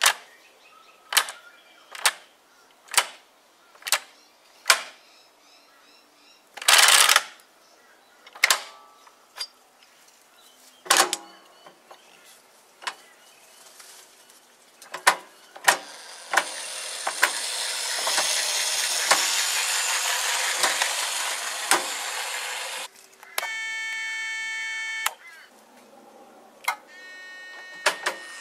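Sharp metallic clicks about once a second as the handle of an old Sydney electric train controller is notched round through its positions. Later comes a stretch of steady hiss, then two short steady buzzing tones near the end.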